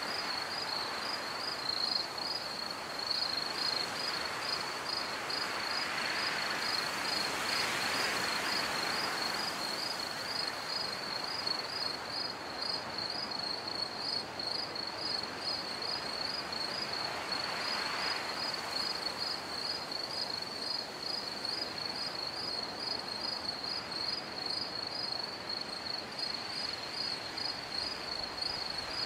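Steady high-pitched chirping like a cricket's, pulsing evenly about two or three times a second, over a soft hiss.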